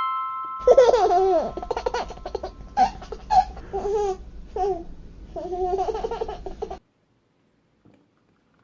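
A baby or young child laughing in a string of short giggles for about six seconds, then cutting off suddenly. It is preceded by the last moment of a music passage.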